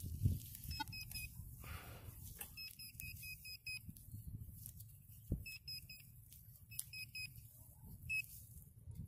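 Handheld metal-detecting pinpointer probe ('GP Pointer') beeping in quick runs of short, high beeps as it is pushed through the dug soil, signalling a metal target close by. Low rustling and handling noise underneath, with a thump about halfway through.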